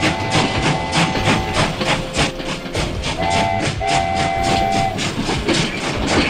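Train running on rails: wheels clacking over rail joints in a steady rhythm, about four a second, while a multi-note train horn sounds three times: a long blast at the start, a short one about three seconds in and a longer one right after.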